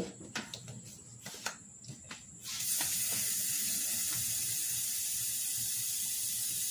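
A few light clicks and knocks, then about two and a half seconds in a steady hiss of air starts suddenly and keeps going evenly: air from a pump flowing through the valve into a lawnmower tire's inner tube.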